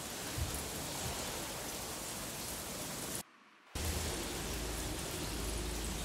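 Steady outdoor hiss with a low rumble underneath, broken by a sudden half-second dropout to near silence about three seconds in.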